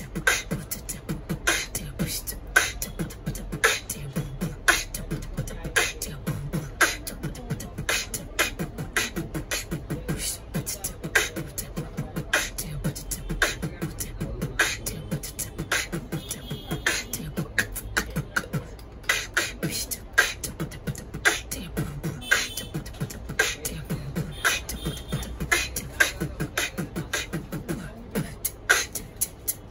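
Human beatboxing: a fast, steady beat of mouth-made kick drums and sharp snare and hi-hat clicks, with a few brief high-pitched vocal effects in the middle.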